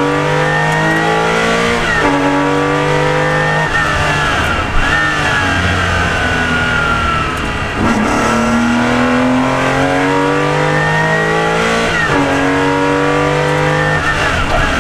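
Porsche RSR rally car's flat-six engine heard from the cockpit at full throttle. It climbs in revs with an upshift about two seconds in, drops in pitch as the car slows for a bend around the middle, then pulls hard again with another upshift near the end. A high whine rises and falls with speed throughout.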